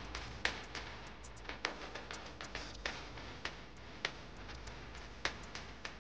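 Irregular light clicks and taps, about fifteen sharp ticks spread unevenly, over a low steady hum.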